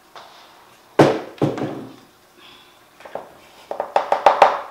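Two heavy thunks about a second in as the blender jar and its base are set down on the counter. Near the end comes a quickening run of sharp knocks and scrapes: a utensil working thick dough inside the blender jar.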